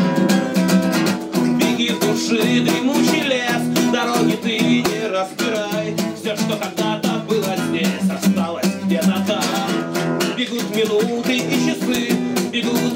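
Steel-string acoustic guitar strummed in a steady rhythm, with a man singing over it from about a second and a half in.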